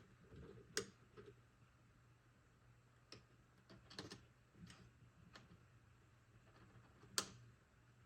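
A scattering of sharp clicks and light knocks at irregular times, the loudest about a second in and near the end, over a faint steady low hum.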